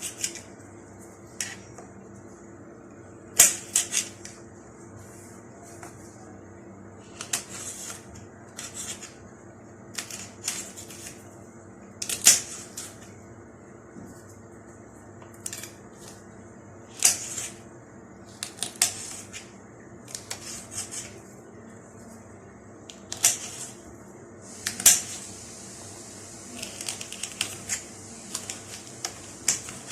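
Kitchen knife slicing hot green peppers into small rings on a cutting board: irregular sharp taps of the blade meeting the board, one at a time or in short quick clusters, every second or few.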